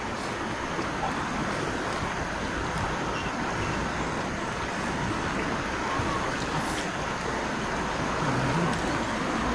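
Steady rushing of a fast-flowing river, an even wash of water noise with no change. A couple of faint clicks of a spoon against a metal pot sound over it.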